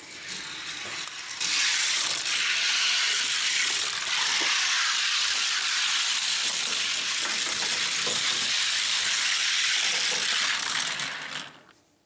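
Two Hot Wheels diecast cars, a T-Bird Stocker and a Chrysler 300C, rolling down a clear plastic gravity track: a steady hissing rattle of small wheels on the track with scattered clicks. It grows louder about a second and a half in and fades out near the end.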